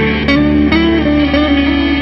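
Live band playing loud, led by electric guitar over upright bass and drums.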